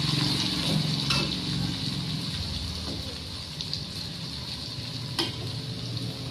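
Strips of tempeh frying in oil in a wok, sizzling as a spatula stirs them, with a few scrapes and a sharp clack of the spatula against the pan about five seconds in. The sizzle grows weaker toward the end.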